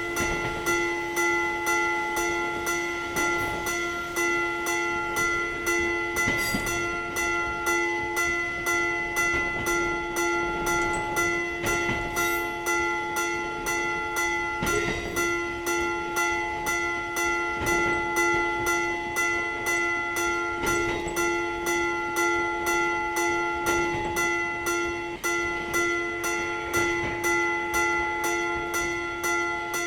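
Japanese railway level-crossing warning bell sounding its 'kan kan' alarm: a ringing, bell-like tone struck over and over in a steady, even rhythm, warning that a train is coming.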